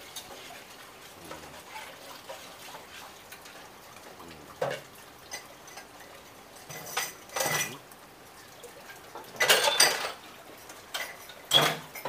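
A ladle scraping and knocking against a metal wok while a thick coconut-milk dish is stirred: about half a dozen short, separate strokes, with the longest and loudest scrape about two-thirds of the way through.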